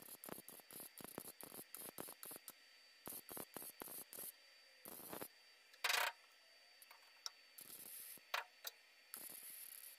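MIG welder stitch-welding steel in short tacks: runs of brief crackling bursts, several a second, broken by pauses, with one louder burst about six seconds in.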